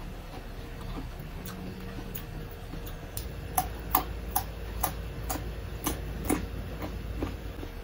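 Close-miked chewing of crisp cucumber: a string of wet, crunchy clicks, about two or three a second, loudest from about three seconds in.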